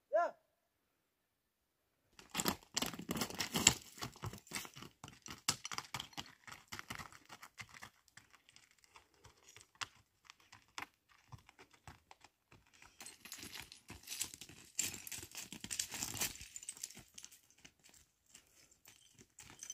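Footsteps crunching on dry, loose stones and gravel, an irregular run of crunches that is loudest a couple of seconds in and again past the middle.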